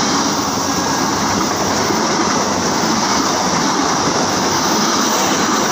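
Passenger coaches of a passing express train rushing by at close range: a loud, steady rush of wheels on rails and air.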